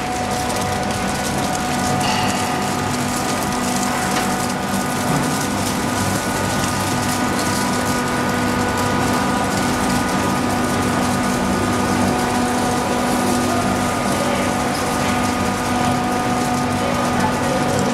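Flake ice machine running: a steady mechanical hum with several constant whining tones over an even rushing noise.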